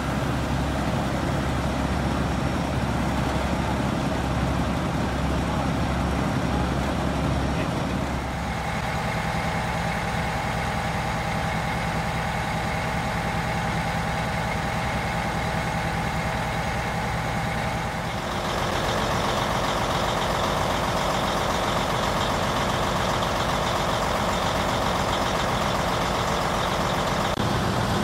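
Diesel engines of fire trucks running steadily. The sound changes abruptly about 8 and 18 seconds in as it shifts from one truck to the next, each with its own steady tone.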